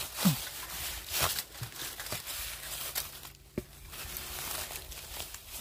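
Dry fallen leaves crunching and rustling while a freshly cut wild bamboo shoot is handled on the forest floor, with several sharp snaps among them.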